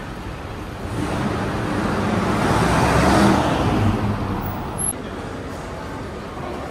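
Road traffic, with one vehicle passing close by: its noise swells over about two seconds, peaks about three seconds in, and falls away by about five seconds, over a steady background of traffic noise.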